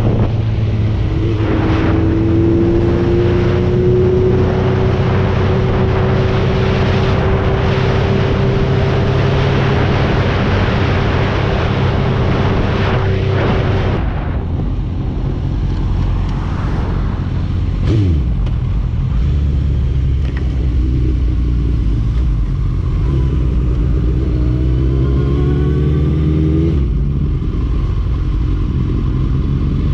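Motorcycle engine running on the move, with wind rushing over the microphone for the first half. About two-thirds of the way in a brief falling tone passes, and near the end the engine rises in pitch as it accelerates, then drops back.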